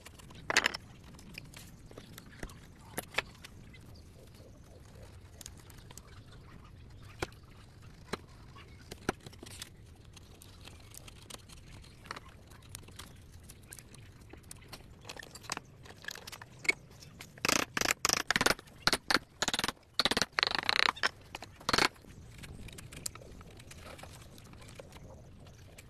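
Hand chisel paring and cutting chips out of a triangular pocket in a wooden board: scattered sharp cuts and clicks, then a quick flurry of strokes in the latter part.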